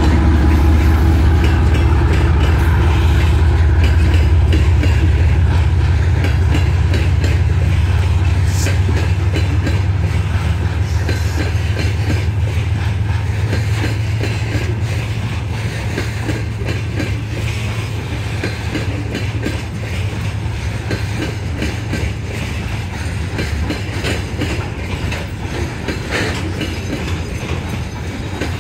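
A TE33AC diesel locomotive's GEVO12 engine hums low as it passes and fades away over the first ten seconds or so. A long string of covered hopper wagons then rolls by, wheels clicking over the rail joints.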